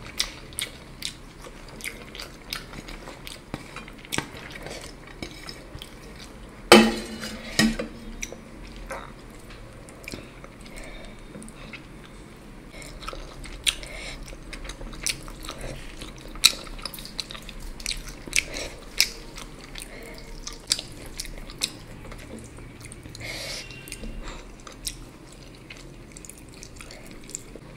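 Dishes and utensils clinking and scraping against each other, many light taps in an irregular run, with one louder clatter that rings briefly about seven seconds in.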